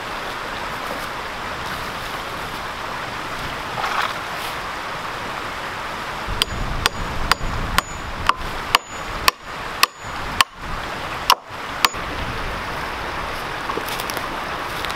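Creek water running steadily. From about six seconds in comes a run of about a dozen sharp knocks, each with a short high metallic ring, broken by brief dropouts.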